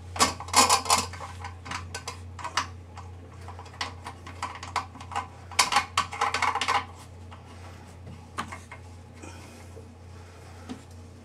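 Hard plastic clicks and rattles from a new plastic ballcock fill valve knocking in the porcelain toilet tank as its hold-down nut is threaded on from underneath. There are two bursts of clatter, one in the first second and one around six seconds in, with scattered lighter clicks between and fewer after, over a steady low hum.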